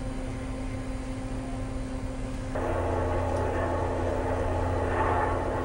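Steady drone of a research ship's engines and deck machinery with a constant low hum; about two and a half seconds in it gets suddenly louder and fuller.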